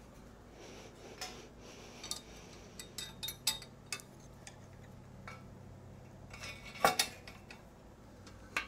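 Metal clinks and knocks of a steel pipe assembly with a solenoid valve being fitted onto a metal stand: a scatter of small clicks, with two louder knocks in quick succession about seven seconds in.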